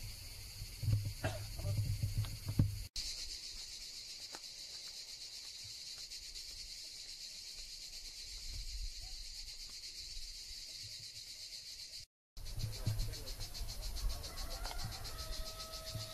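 Steady, shrill chorus of cicadas. A few soft knocks in the first three seconds, and a brief held tone near the end.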